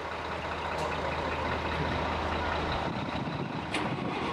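Truck engine running with a low steady hum that stops almost three seconds in, over general background noise.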